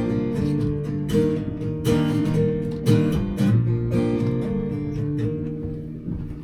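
Acoustic guitar strumming chords, roughly one strum a second, fading out near the end as the song closes.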